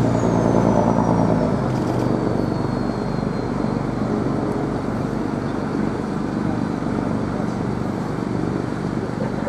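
A steady engine-like rumble with dense noise, starting abruptly and loud, with a faint high whistle falling in pitch over the first three seconds or so.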